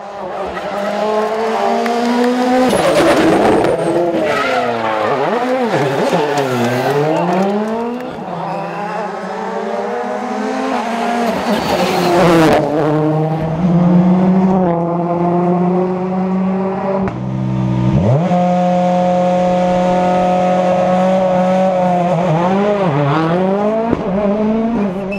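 Rally car engines revving hard on a special stage, the pitch climbing and dropping repeatedly through gear changes and braking. Near the end one engine holds a steady high note for several seconds.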